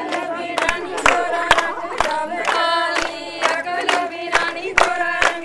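A group of women singing together, with sharp hand claps or beats keeping time about once or twice a second.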